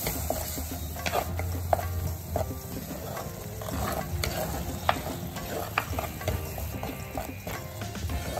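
Wooden spatula stirring a sizzling onion-tomato paste in oil in an earthenware clay pot, with irregular knocks and scrapes of the spatula against the pot over a steady frying sizzle.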